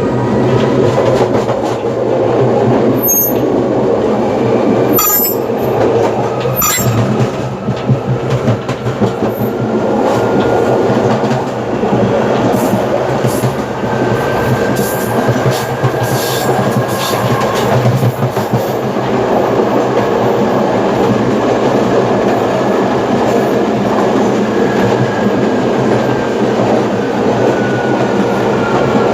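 Series 2000 electric multiple-unit train running under way: a steady traction-motor hum and whine over rolling rail noise. The whine rises slightly in pitch and then falls, and a few brief high squeaks come in the first seven seconds.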